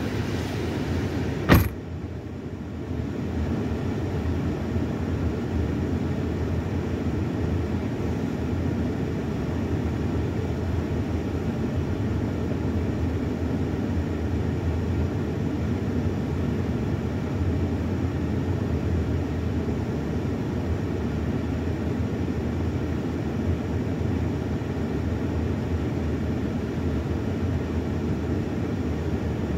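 Car idling, heard from inside the cabin as a steady low rumble. A single sharp knock comes about a second and a half in.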